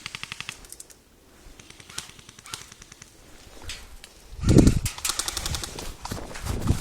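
Airsoft rifles firing full-auto: a rapid burst of evenly spaced shots that stops about a second in, and another burst about five seconds in. Just before the second burst there is a loud low thump.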